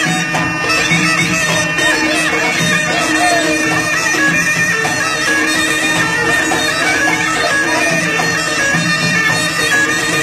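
Folk dance music: a melody played over a steady drone, with no break.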